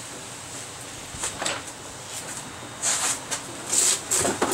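A few short scuffs and light knocks about a second apart: footsteps on a concrete shop floor and engine parts being handled at the workbench.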